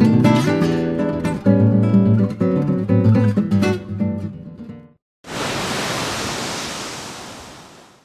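Acoustic guitar music, strummed and plucked, fading out about five seconds in. After a brief silence, a sudden wash of hiss-like noise begins and fades away over nearly three seconds.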